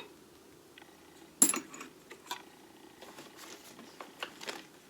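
Small metal lathe tools clinking as they are handled in a toolbox drawer: one sharp clack about a second and a half in, then a few lighter clicks.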